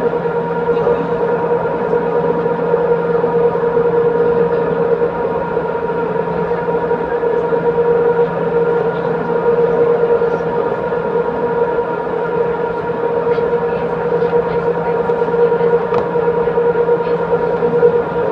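Tour boat's engine running steadily, a constant drone with several steady tones and a few faint ticks.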